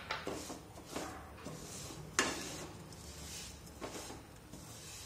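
Wooden spatula stirring sesame seeds, melted jaggery and chopped nuts in a kadai: scraping along the pan with a few knocks, the sharpest about two seconds in.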